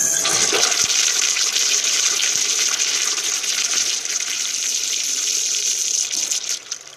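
Urinal flush valve flushing a Kohler Dexter urinal: a loud, hissing rush of water that starts suddenly and cuts off after about six and a half seconds.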